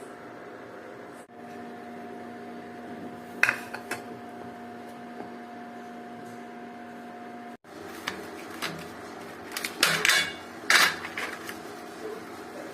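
Metal kitchen utensils clinking and scraping against a pan: one knock about three and a half seconds in, then a run of knocks and scrapes from about eight seconds, loudest around ten to eleven seconds. A steady hum runs underneath.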